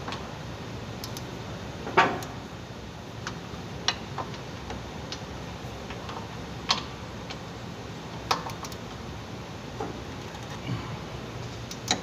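Hand tools on a rear suspension bolt: a socket wrench and a combination wrench giving irregular sharp metallic clicks and clinks, the loudest about two seconds in, over a steady low background hum.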